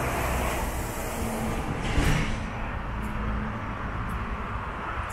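Road traffic: motor vehicles passing with engines running, a heavier rush of noise in the first two seconds and a short knock about two seconds in.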